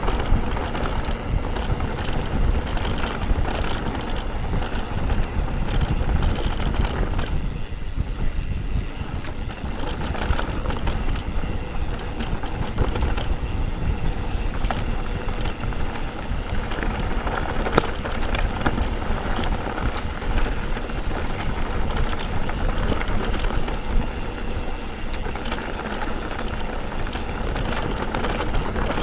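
Mountain bike riding downhill: wind rushing over the camera microphone and the tyres and bike rattling over the trail, with a few sharp knocks.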